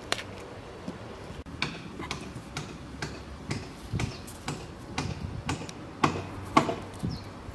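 Fresh corn being husked by hand, the husk leaves and silk crackling and snapping off the cob in a string of short crisp snaps, about two a second.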